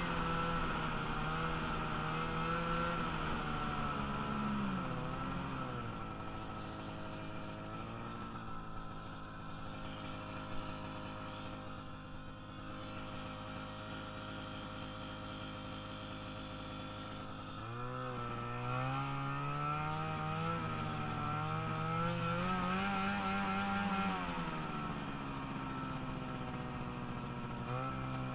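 Freshly rebuilt engine of a small vehicle being ridden, its revs climbing and falling in long sweeps, settling to a lower steady note for about ten seconds in the middle before revving up again.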